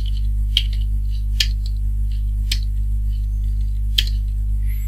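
Computer keyboard typing: irregular key clicks, a few sharper than the rest, over a steady electrical mains hum.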